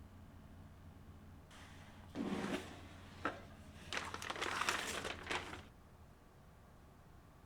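Packaging being handled: crinkling and rustling in a short burst about two seconds in and a longer one from about four seconds, with a single sharp knock between them.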